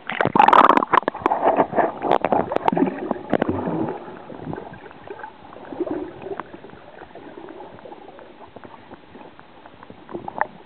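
Water splashing and bubbling around a camera as it is dunked below the surface, loud and busy for the first few seconds, then a quieter, muffled water noise heard from underwater.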